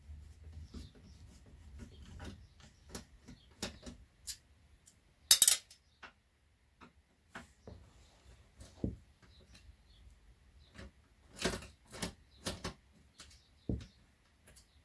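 Irregular metallic clicks and clinks of a screwdriver working screws out of a stereo's sheet-metal casing, with loose screws and parts clattering down. There is one louder clatter about five seconds in and a run of sharper clicks near the end.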